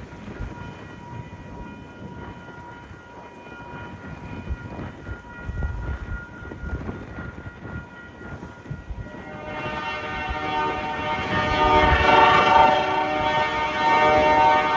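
Diesel locomotive horn, from ALCO C424 No. 4212: faint steady tones at first, then a loud, sustained blast starting about two-thirds of the way in, over a low rumble.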